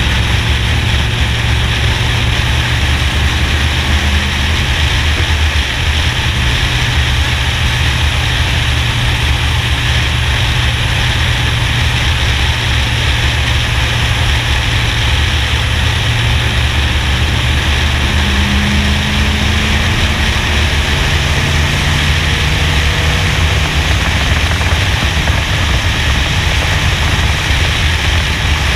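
Steady loud roar of a NASCAR stock car at racing speed, picked up by a camera mounted on top of the car. Wind rush blends with the low drone of the V8 engine, and the lifts and returns to throttle are hard to make out.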